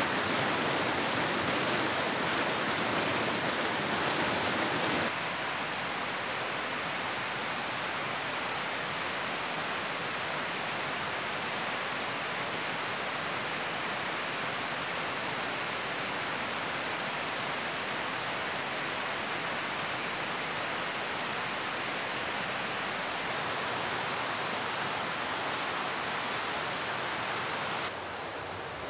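Rushing river water, a steady even roar, louder and brighter for the first five seconds before settling lower. Near the end there are a few faint, short, high ticks.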